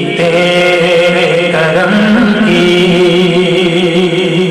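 A man singing a Sufi kalam in long, held notes into a microphone, the pitch slowly wavering and stepping between notes.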